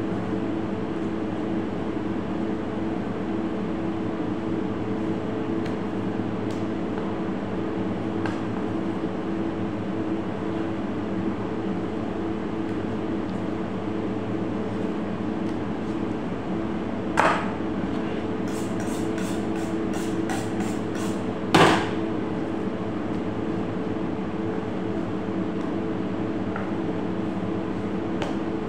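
Steady machine hum with a constant low drone. Two sharp knocks come about seventeen and twenty-one seconds in, with a quick run of light clicks between them, as knife work meets the cutting board.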